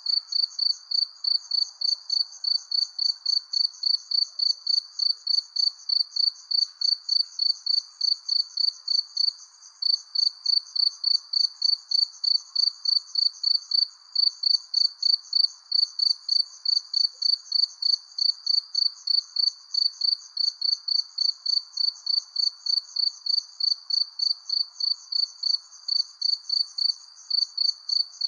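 Cricket chirping at night in a steady rhythm of about three high-pitched chirps a second, pausing briefly a couple of times, over a faint low background hiss.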